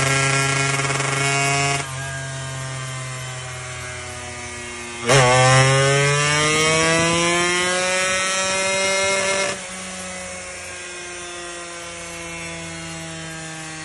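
Small racing motorcycle engine running at high revs. The revs drop about two seconds in; just after five seconds it is blipped hard and the pitch climbs steadily for about four seconds. Then the throttle is closed and it settles into a steady fast idle.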